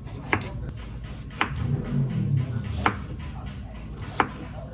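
A knife chopping on a cutting board: four single strokes, each a sharp knock, a little over a second apart.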